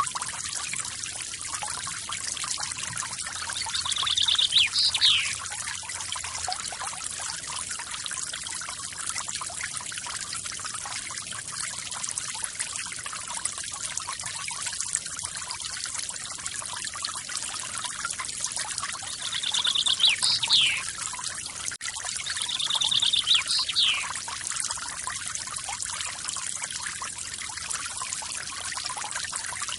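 Forest waterfall splashing and pouring steadily. A bird calls three times over it, each call a quick trill ending in a sharp downward-sliding note.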